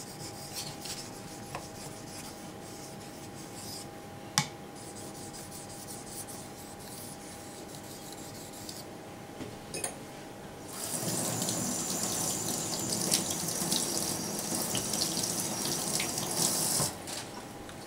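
Faint strokes of a knife blade across a wet 2000-grit waterstone, then a tap runs into a stainless steel sink for about six seconds near the end, the loudest sound.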